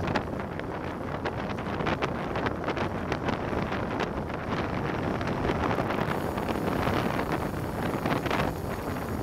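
Wind rushing over an action camera's microphone on a bicycle descent, mixed with tyre and road rumble and many small knocks from road vibration. It grows a little louder as the bike picks up speed in the second half.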